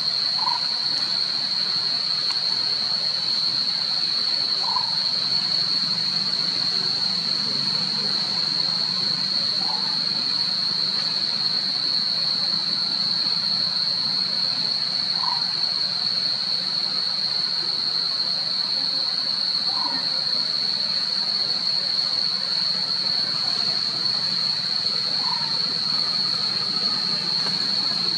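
Steady high-pitched insect drone, with a short call repeating about every five seconds.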